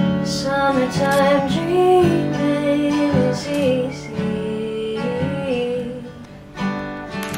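Background music: acoustic guitar strumming under a woman's sung melody.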